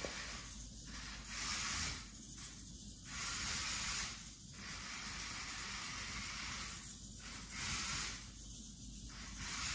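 Raspberry Pi toy robot car's small electric drive motors whirring faintly in bursts of about a second, with short pauses between, as the car drives, stops and turns while avoiding obstacles.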